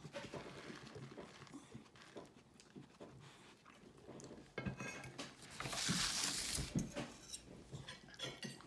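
Fork and knife clinking and scraping on a ceramic dinner plate in light, scattered taps. About six seconds in, a louder hiss lasting about a second.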